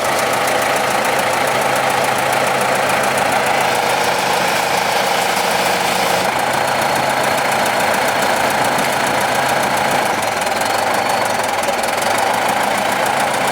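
A bulldozer's engine running steadily, with a shift in its sound about six seconds in.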